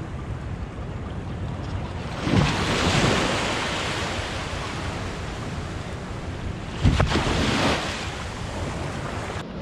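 Small sea waves breaking and washing up the sand in foam, with two louder surges, one about two seconds in and a sharper one about seven seconds in, over a steady wash and wind on the microphone.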